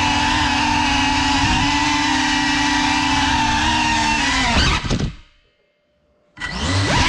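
Geprc Cinelog 35 cinewhoop's motors and ducted propellers whining steadily at several pitches in fast flight, heard from the onboard camera. About five seconds in the pitch drops with a few knocks and the motors stop, a crash or hard landing on the floor; after about a second of silence they spin up again near the end.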